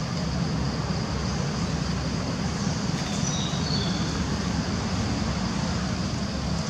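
Steady low outdoor rumble of background noise, with a faint steady high hum above it and a few brief high chirps about three seconds in.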